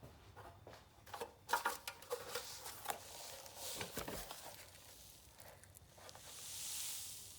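An e-bike lithium-ion battery pack being handled and torn open by hand: a cluster of sharp clicks and knocks, then a longer rasping tearing sound near the end.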